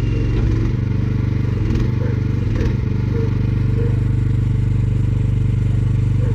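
Mini excavator engine running steadily, with a few light clanks and scrapes from the machine working.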